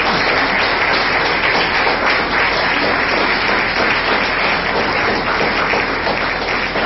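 Audience applauding steadily, a dense clatter of many hands clapping, easing off slightly near the end.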